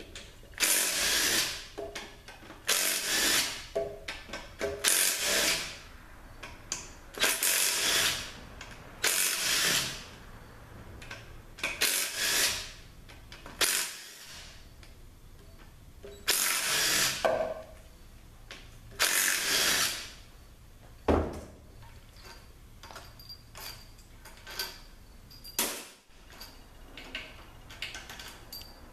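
Cordless drill/driver backing out the front pump bolts of a Ford 4R100 automatic transmission, running in about ten short bursts of roughly a second each, with a few sharp clinks in between.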